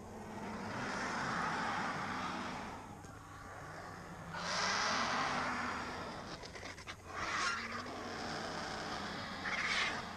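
Griffon and cinereous vultures squabbling over a carcass: repeated breathy hisses, with a quick run of clicks and scuffling about seven seconds in and short sharp hisses after it and near the end.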